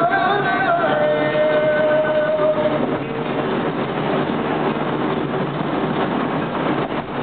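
Steady road and wind noise inside a moving car's cabin. A held note sounds over it and stops about three seconds in.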